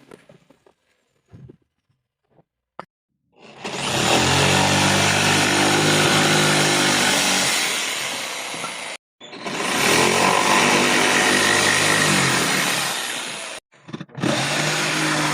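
A woodworking power tool running and cutting: a steady motor hum under a loud hiss. It starts about three and a half seconds in, after a few faint ticks, and stops abruptly twice for a fraction of a second.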